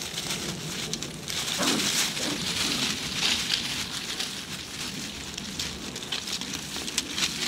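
Fox terrier puppies digging and scratching in dry leaf litter: continuous, uneven crackling and rustling of dry leaves.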